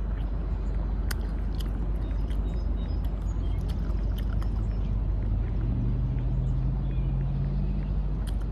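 Steady motor-vehicle traffic rumble; about five and a half seconds in an engine hum comes up and holds for a few seconds before dropping away near the end.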